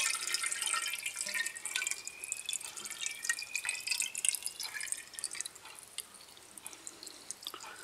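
Water being poured into a capped exhaust header tube, trickling and splashing inside the pipe with many small drips, the sound thinning out and fading as the pour slows.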